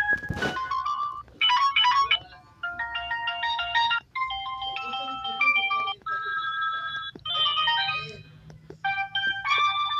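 Built-in ringtones of a basic Samsung GT-E1195L-type mobile phone, previewed one after another: about seven short beeping melodies, each stopping abruptly after a second or two as the next one starts. There is a sharp click right at the start.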